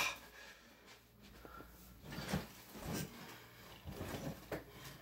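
Faint thumps and rustling from a person moving about on a bed mattress. After about two seconds of near quiet, a few soft knocks come irregularly.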